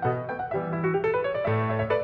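Background music played on a keyboard: a steady run of short notes that steps upward about half a second in, over sustained bass notes.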